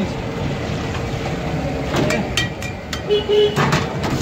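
Steady noise of a busy roadside food stall: traffic from the street mixed with the sizzle of potato chips deep-frying in a well of hot oil, with a few sharp clatters.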